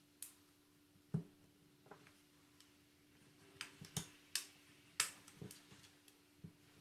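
Irregular small clicks and taps, about ten of them, as phone parts and small tools are handled during disassembly, over a faint steady hum.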